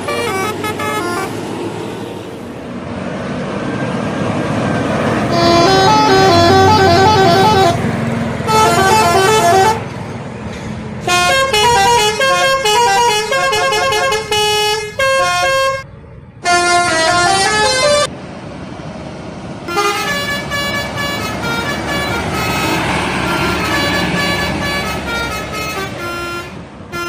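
Bus telolet horns, multi-tone air horns playing short tunes of stepped notes, sounding again and again in separate runs with brief gaps between. Underneath is steady traffic noise.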